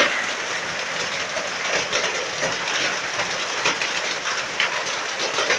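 Hailstorm: a steady, dense clatter of hailstones and rain pelting down, made of countless small rapid impacts.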